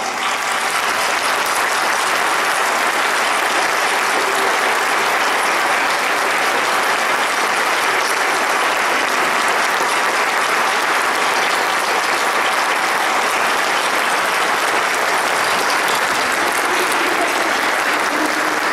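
A congregation applauding, a steady, unbroken clapping.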